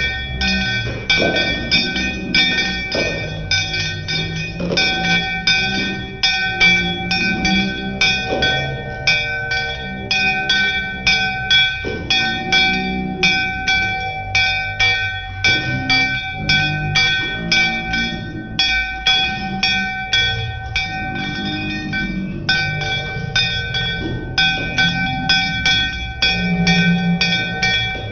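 Puja hand bell rung rapidly and without a break, a few strikes a second, its ringing tones overlapping into one steady ring, as is done while the aarti lamp is waved before the altar.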